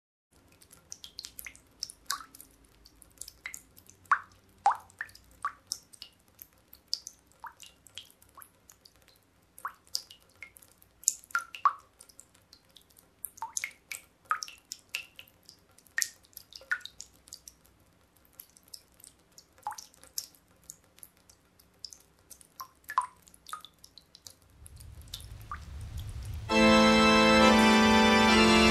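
Water dripping: single drops fall at irregular intervals, each a short pitched plop. Near the end a low rumble swells, and then music with loud sustained chords begins.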